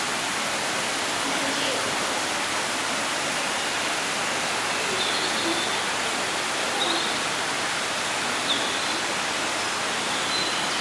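Small waterfall cascading over rocks into a pond: a steady, even rushing and splashing of water.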